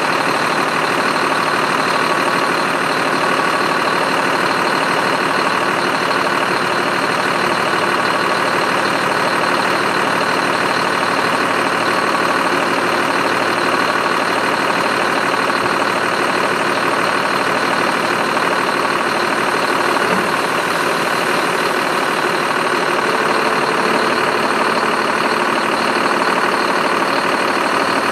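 Diesel engine of a 2006 Sterling L8500 dump truck running steadily while its hydraulic hoist tips the dump body up, with a steady high whine over the engine.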